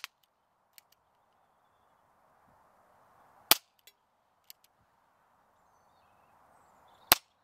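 Baikal MP-654K CO2 BB air pistol firing single-action shots: two sharp cracks about three and a half seconds apart, with a few faint ticks in between.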